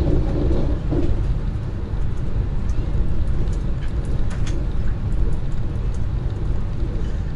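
Lastochka electric train running along the line, heard from inside the passenger car: a steady low rumble of wheels on rails with a few faint ticks.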